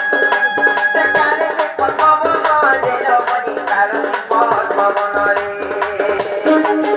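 Instrumental accompaniment for a danda nrutya folk dance: a hand drum plays a quick, even rhythm under a held melody line.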